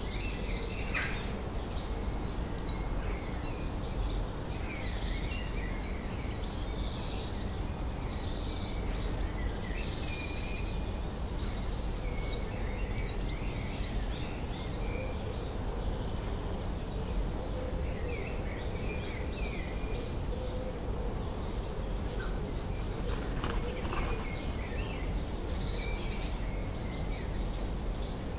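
Dawn chorus: several birds singing and calling at once, with many short chirps and trills overlapping, thickest early on and again near the end. Underneath runs a steady low background rumble.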